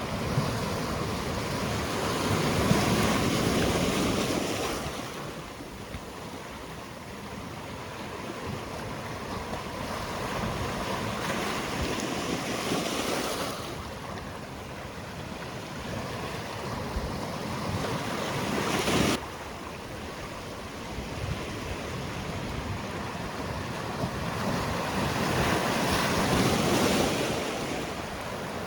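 Sea waves breaking and washing on the shore, rising and falling in surges every several seconds; one surge cuts off sharply about two-thirds of the way through.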